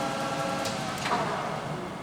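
LeBlond Regal engine lathe's geared head running at 654 RPM with a steady gear whine, then a click and a clunk about a second in as the drive is thrown out, and the machine winds down.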